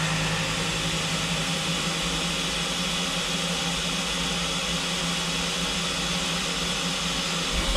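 Sumitomo WEZ indexable-insert end mill with AOET inserts milling on a Swiss-type automatic lathe. The cut gives a steady, low-pitched machining sound with a hum that holds level throughout, and the cut is not free of vibration.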